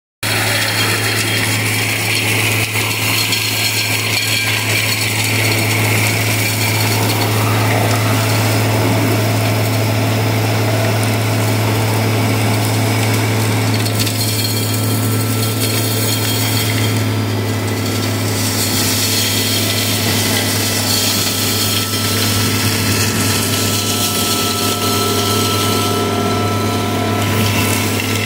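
Vacuum excavation truck running at full suction: a steady low engine and blower drone under a constant rush of air being drawn up the metal suction tube in the trench.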